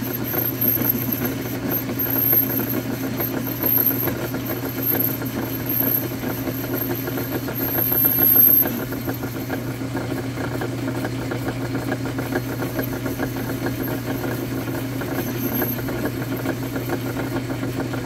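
Metal lathe running with a steady motor and spindle hum while the tool bit cuts the spinning metal part. The cutting noise is louder and uneven for the first eight or so seconds, then the running settles steadier.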